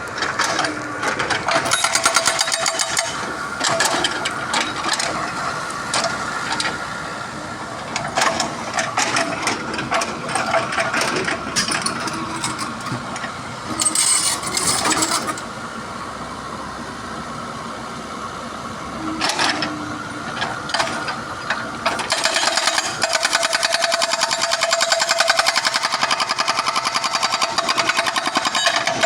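Excavator with a hydraulic breaker hammering, a fast run of repeated knocks over the machine's running engine; the hammering turns dense and steady for the last several seconds.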